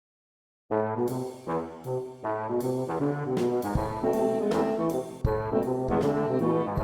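Intro music with brass, led by trombone and trumpet, starting about a second in; drum hits join about halfway through.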